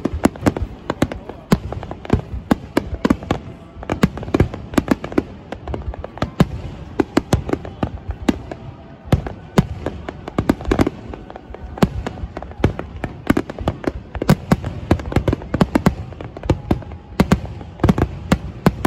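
Aerial fireworks shells bursting in a continuous barrage: many sharp bangs, several a second, with no letup.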